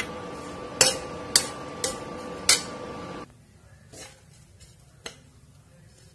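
A spatula scraping and knocking against a pan while stirring a dry-roasted coconut and spice mixture, with several sharp clinks in the first few seconds. A steady background hum stops suddenly about three seconds in, and a few fainter taps follow.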